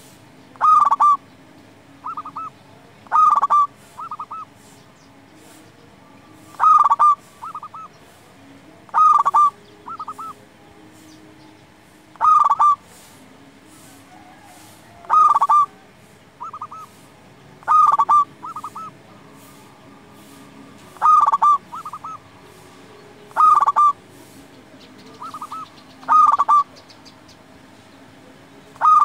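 Zebra dove (local perkutut) cooing its rapid, stuttering call: a loud burst of quick notes every two to three seconds, with softer, shorter phrases in between.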